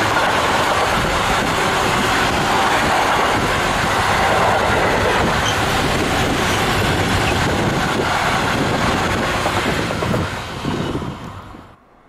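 Container freight train's wagons rolling past close by: a steady, loud rumble and rattle of steel wheels on rail, which cuts off suddenly near the end.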